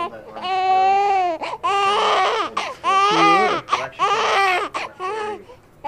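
Newborn baby crying loudly right at the microphone: four long wails in quick succession, then shorter cries near the end.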